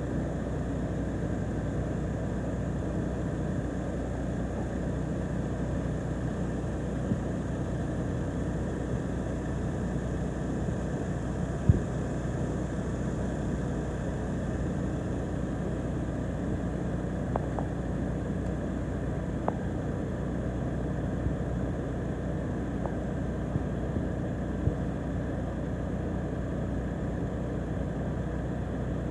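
A crane's engine running steadily, with a few brief knocks, the loudest about twelve seconds in.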